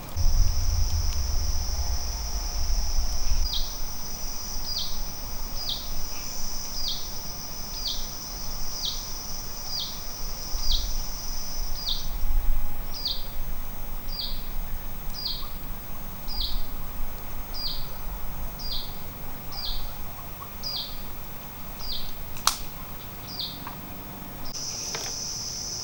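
Forest insects: a steady high-pitched drone that drops out about halfway and returns near the end, with a run of short falling calls repeated about once a second. A low rumble in the first few seconds and a single sharp click near the end.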